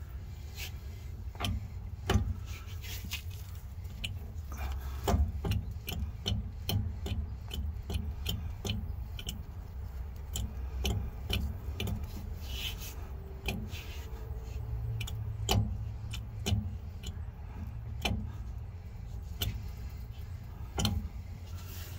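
Open differential of a Nissan Frontier being turned over by hand with its cover off: irregular metallic clicks and clacks from the ring and spider gears as they rotate, over a low steady rumble. The spider gears have excess play, which the mechanic takes for wear.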